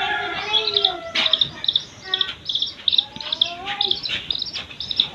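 A six-day-old chick peeping over and over in short, high chirps, often in quick pairs, a few every second.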